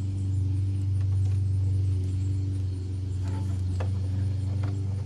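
A steady low hum runs throughout. In the second half come a few light clicks and rattles of hands working on small parts.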